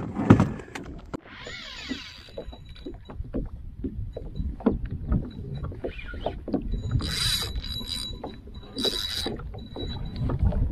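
Water slapping against a plastic kayak hull, with scattered knocks and clicks of gear on the boat. About seven and nine seconds in come two short high-pitched whirring bursts of a spinning reel being wound.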